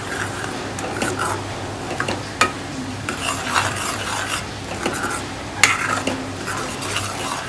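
Steel spoon stirring and scraping thick spinach paste for palak paneer in a kadhai, the paste frying with a light sizzle. Two sharp clinks of the spoon against the pan stand out, about two and a half seconds in and again near six seconds.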